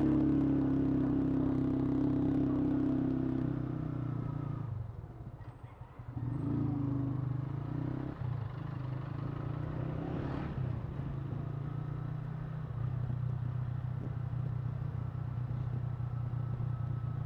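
Yamaha SZ motorcycle's single-cylinder engine running under way; the engine note drops and quietens about five seconds in, then carries on steady and lower.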